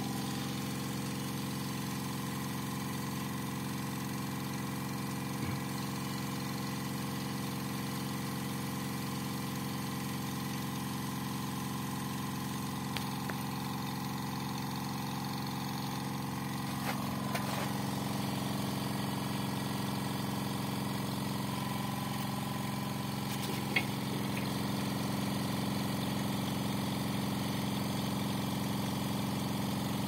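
Stanley Fatmax 6-litre, 8-bar silent air compressor running steadily under load, its motor giving an even hum as it pumps air into a skid-steer tyre through an inflator gun. The tone shifts slightly about halfway, with a few faint clicks.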